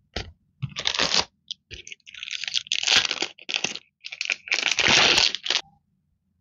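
Clear plastic sleeves of sticker packs crinkling as they are handled, in a string of short irregular bursts.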